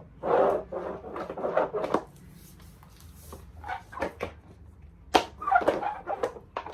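Bubbles of a large silicone pop-it fidget toy being pressed, giving quick runs of soft pops in irregular clusters with short pauses between.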